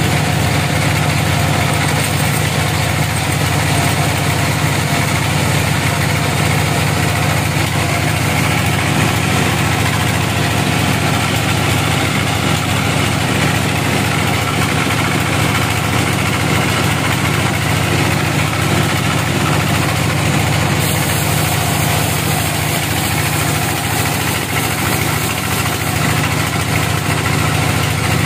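Large band sawmill running steadily as it saws a teak log into slabs, a constant low mechanical hum with noise of the blade over it.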